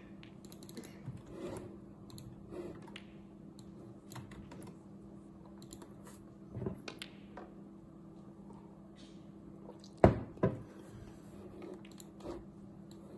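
Scattered light clicks over a steady low hum, with two sharp, loud clicks about half a second apart around ten seconds in.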